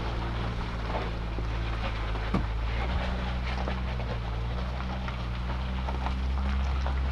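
A motorhome's Ford 460 V8 engine running steadily under way, a low drone with scattered small clicks and rattles over it.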